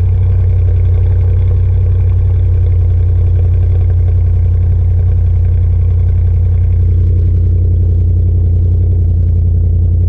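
Audi RS7's twin-turbo V8 idling steadily with a low rumble, heard from the rear of the car, shortly after a cold start.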